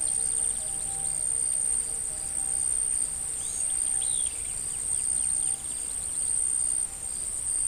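Forest ambience: insects chirring in a high, steady band that breaks off every second or so, with small birds chirping and twittering through the middle. A soft sustained music tone fades out early on.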